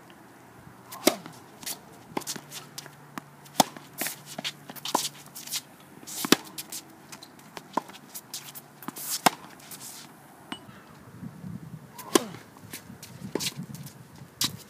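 Tennis rally on a hard court: sharp pops of racket strings striking the ball every two to three seconds, with lighter ticks of ball bounces and footwork in between.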